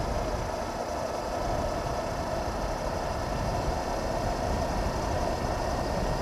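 Steady wind noise over a helmet-mounted camera, with a Honda CB500X's parallel-twin engine running under it at a steady cruise.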